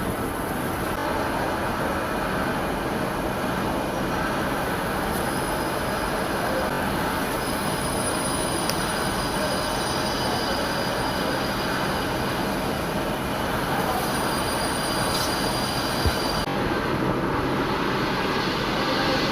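CNC lathe turning an aluminium pulley: steady machining noise, with thin high squealing tones that hold from about five seconds in to about sixteen seconds in. The sound changes about sixteen seconds in, where the high squeal stops and a lower hum comes in.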